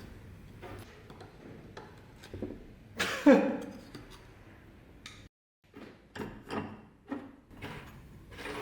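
Scattered small clicks and knocks of objects being handled, with one louder scraping knock about three seconds in.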